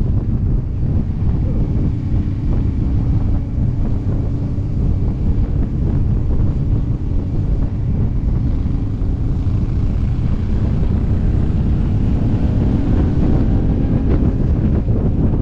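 Wind buffeting a helmet-mounted microphone on a moving motorcycle, with the bike's engine running faintly beneath, its pitch drifting slightly.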